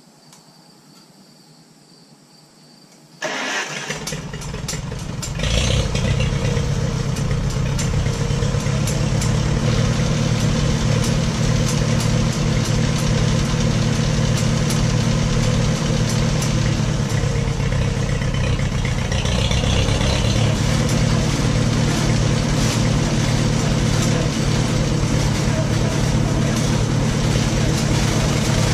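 1941 Farmall H's four-cylinder engine starting suddenly about three seconds in, then running steadily and louder from about five seconds on, as it drives the Gehl corn chopper.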